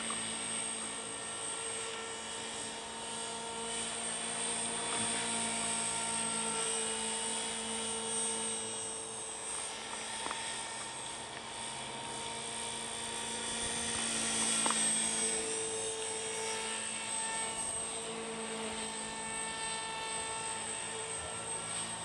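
HK450 electric RC helicopter in flight: the steady high-pitched whine of its brushless motor and gears over the whir of the rotor blades, the pitch drifting slightly as it manoeuvres and growing louder for a moment a little past halfway.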